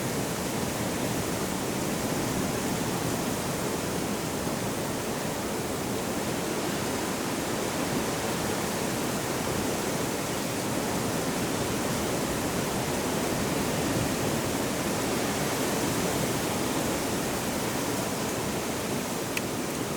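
Hillside ambience: a steady, even rushing noise with no distinct events.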